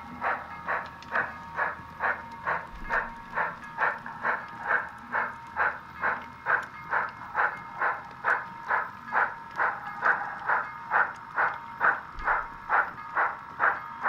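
Sound-equipped Sn3 model steam locomotive chuffing steadily through its onboard speaker, about two and a half chuffs a second, as it runs slowly by.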